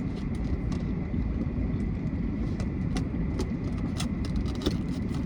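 Steady low rumble of a car, heard from inside the cabin, with a few faint clicks scattered through it.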